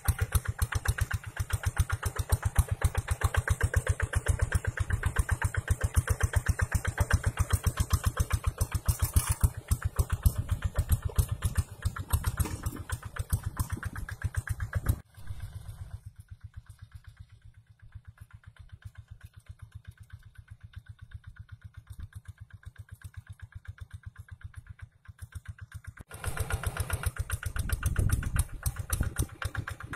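Single-cylinder diesel engine of a walk-behind two-wheel hand tractor running steadily under load while it pulls a plough through dry soil, with an even, fast chug. The sound drops much quieter for about ten seconds in the middle, then comes back loud.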